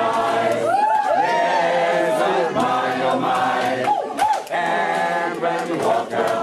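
A choir singing, the singers reading from song sheets, with a few swooping notes about a second in and again around four seconds.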